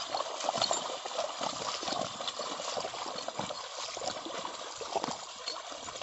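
Wet mud and water sloshing and squelching as two bullocks drag a wooden leveling board through a puddled paddy field, their hooves splashing in the mud. It is a continuous wet sloshing with many small splats throughout.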